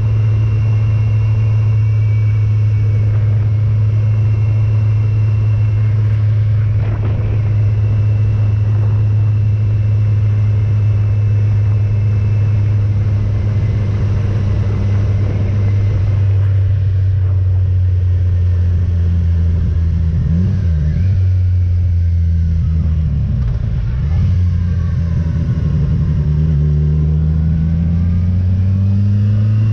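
Motorcycle engine running at a steady cruising speed. About two-thirds of the way through its pitch dips and wavers as it slows, and near the end it climbs steadily as the bike accelerates.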